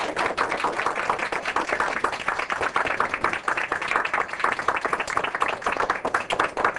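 A roomful of students applauding: many hands clapping together, starting suddenly and keeping up steadily.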